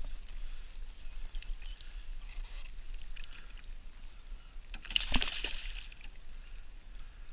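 An arrowed fish splashing at the surface right beside a wooden canoe's hull, in one louder burst with a knock about five seconds in. Before it there are faint ticks and scrapes as the line is brought in on a bowfishing bottle reel.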